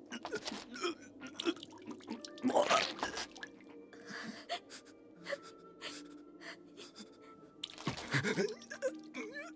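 Heavy, gasping breaths from someone straining, several rasping breaths a few seconds apart, over a few faint held tones.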